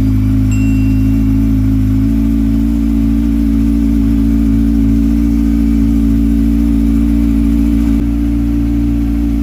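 Kawasaki Ninja ZX-6R 636 inline-four engine idling steadily, its oil freshly changed and topped up. The pitch steps slightly twice.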